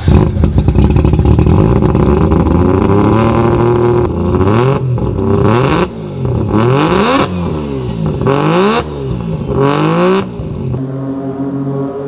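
Three-rotor rotary engine in a Mazda RX-7, running just after a spark plug change. It holds a steady fast idle, is blipped up and down about five times in quick succession, then settles back to idle near the end.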